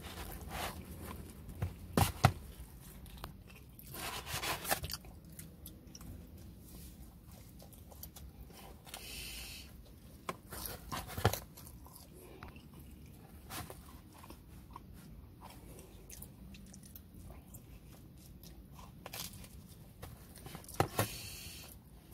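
A person chewing and biting into pepperoni pizza, with a few sharp crunches and mouth clicks scattered through.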